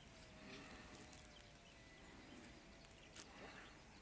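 Near silence: faint outdoor background with a faint steady hum and a single sharp click about three seconds in.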